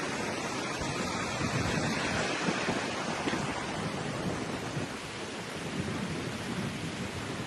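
Steady rushing noise of heavy rain, with a low rumble swelling a second or two in.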